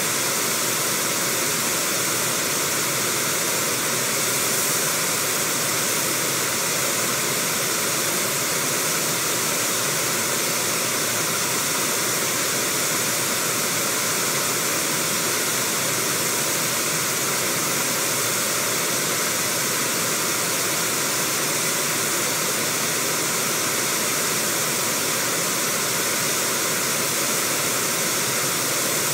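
Steady rush of white-water river rapids, an even, unbroken hiss.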